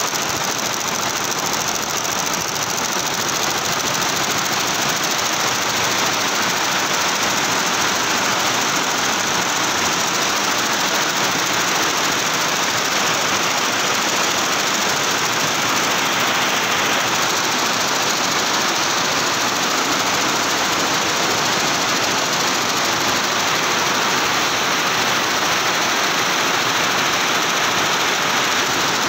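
Multi-head computerised embroidery machine running, its needle heads stitching at speed: a steady, even mechanical noise.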